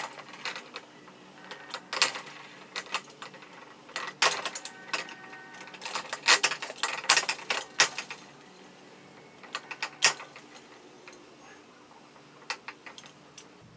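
Headset cup press tool being unthreaded from a scooter's head tube, its threaded rod spun by hand. It gives irregular metallic clicks and ticks, coming in several quick clusters.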